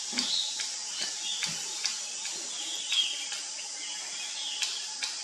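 Outdoor ambience of birds chirping over a steady insect drone, with scattered sharp clicks and taps, the loudest about three seconds in.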